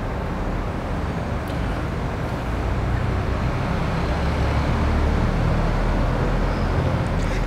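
Steady low rumbling background noise with a hiss over it, slowly growing a little louder, with no distinct events in it.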